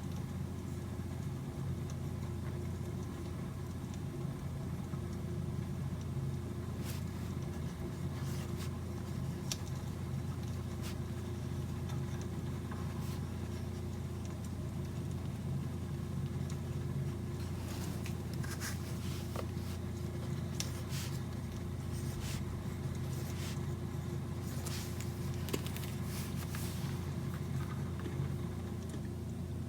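A steady low hum runs throughout, with scattered light clicks and taps, more frequent in the second half.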